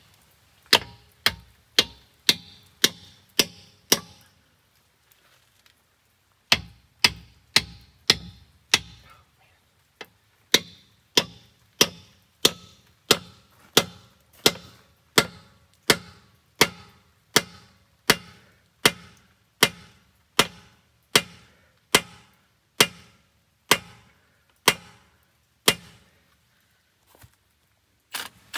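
Hammer blows driving a nut-extractor socket onto a stuck nut on a bus wheel hub: sharp metal-on-metal strikes with a short ring, about two a second, pausing briefly about four seconds in and again near the end.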